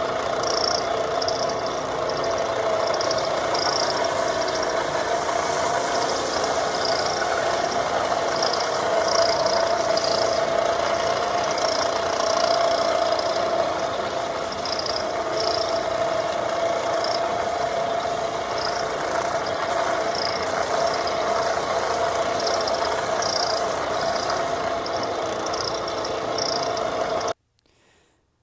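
A power tool running steadily at a constant pitch, cutting off abruptly near the end.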